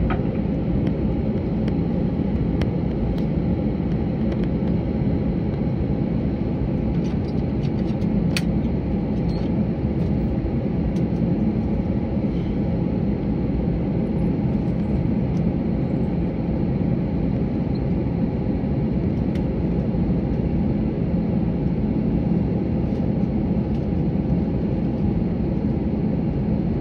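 Cabin noise inside an Airbus A321 taxiing into the gate after landing: a steady low rumble of the engines at idle and the airframe rolling, with a few faint clicks.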